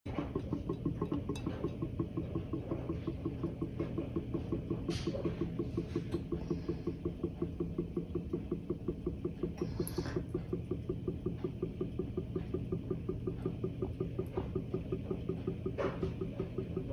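Olive oil glugging out of an upturned tin into a glass bottle: a quick, even run of glugs, several a second, that goes on steadily. A few faint sharper clicks sound among them.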